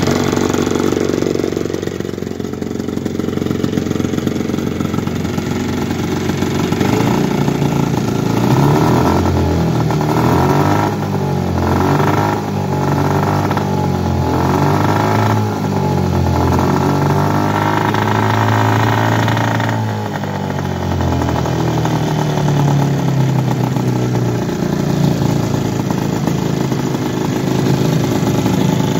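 1980 Evinrude 15 hp two-cylinder two-stroke outboard running shortly after a cold start. It starts at a steady idle; between about a quarter and two-thirds of the way through its speed rises and falls several times before settling back to a steadier run.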